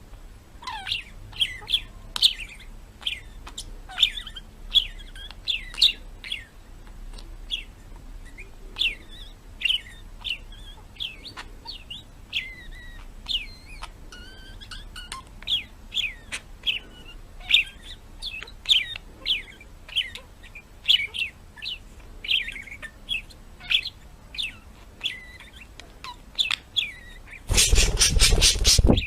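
Birds chirping: many short, high chirps in quick succession, with sharp clicks among them. A burst of loud rushing noise near the end.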